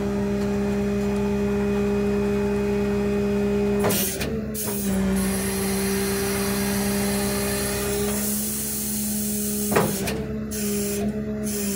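Hydraulic wheel lift of a Ford F650 rollback tow truck being worked, with a steady hum from the hydraulic pump. A short clunk comes about four seconds in and another near ten seconds, where the pitch shifts slightly as the lift changes movement.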